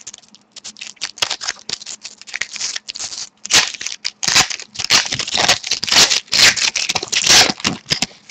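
Foil wrapper of a pack of hockey trading cards being torn open and crinkled, a run of irregular crackling and tearing that grows louder about halfway through.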